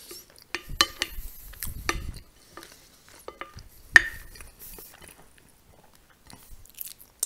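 Black plastic spoon scraping and clinking on a ceramic plate while scooping up beet salad, with one sharp clink about four seconds in.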